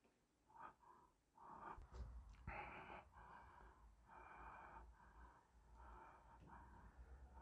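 Faint breathing close to the microphone, a run of soft breaths one after another, with a couple of small clicks about two seconds in.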